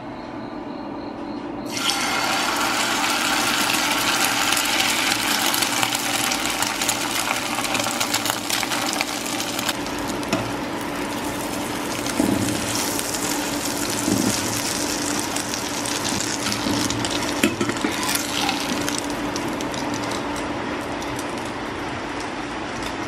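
Egg and glass-noodle batter frying in hot oil in a nonstick pan: a steady sizzle that starts suddenly about two seconds in as the batter hits the oil. A metal spatula knocks against the pan a few times.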